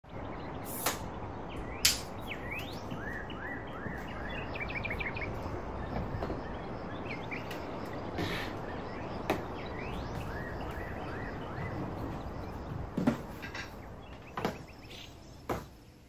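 Camera gear being set down on a wooden desk: a handful of sharp knocks and clicks spread through, over a steady background hiss with small birds chirping in short runs of quick calls.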